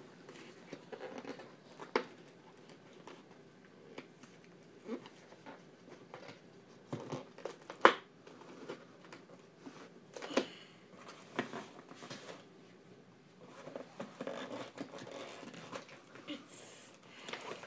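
Packaging crinkling and tearing as a doll box is opened by hand, with scattered sharp clicks and knocks; the loudest snap comes about eight seconds in.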